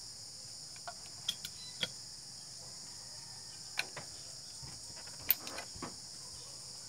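Scattered sharp clicks and taps from a hand crimper and tools worked on a speargun's monofilament line, the loudest about five seconds in. Steady insect chirring continues underneath.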